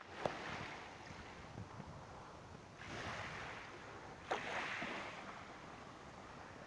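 Small lake waves washing in over a pebble shore in gentle swells, three times, with two sharp clicks, one near the start and one about four seconds in.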